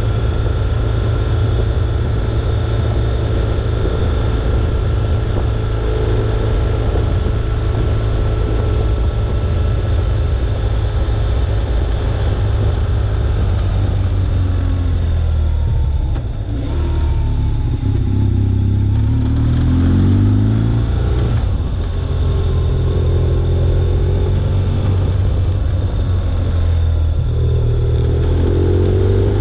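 BMW R1200GS flat-twin boxer engine under way, heard from the windshield mount, with wind and road noise: cruising steadily, easing off about halfway through, then rising in pitch in steps as it accelerates through the gears, and rising again near the end.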